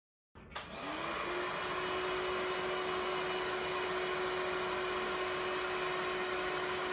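Built-in electric air pump of an Etekcity twin-size air mattress switching on with a click about half a second in. Its whine rises over about a second as it spins up, then it runs with a steady whirring hum, inflating the mattress.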